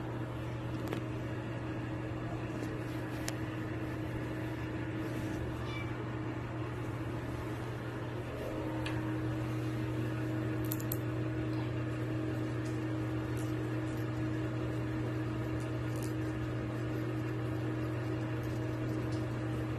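Steady low hum that grows a little louder about eight and a half seconds in, with a few faint kitten mews.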